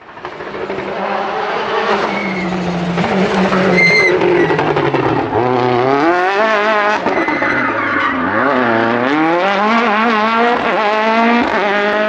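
Racing car engine revving hard, its pitch climbing and dropping again and again. There is a brief high squeal about four seconds in.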